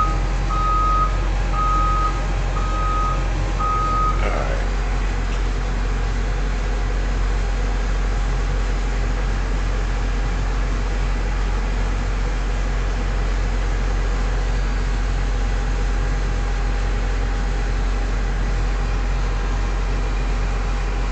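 CAT 316 excavator's diesel engine running steadily, with its travel alarm sounding about five evenly spaced beeps that stop about four seconds in, the sign that the machine has just stopped tracking; a brief clatter follows.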